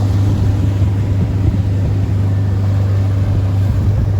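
Boat engine running steadily underway, a loud, even, low drone with a rough rumble beneath it.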